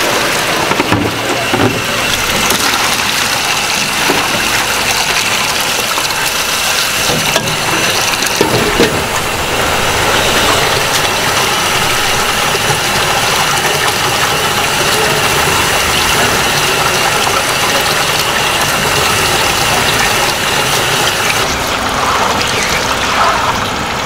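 Tap water running steadily into a plastic basin and splashing as boiled noodles are rinsed and worked by hand. A basin of water is tipped out and gushes over a steel counter near the start.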